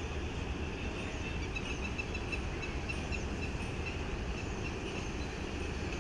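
Steady low rumble of distant city traffic heard from high up, with small birds chirping in quick repeated notes.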